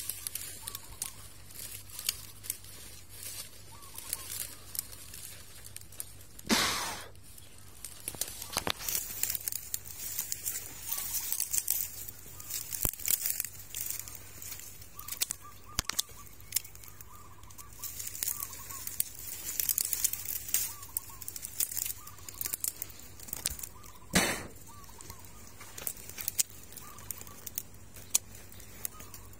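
Rustling and crackling of leaves and twigs being handled at a wild bee nest, with two louder rushes of noise, one about seven seconds in and one about 24 seconds in. Faint bird calls come and go behind it.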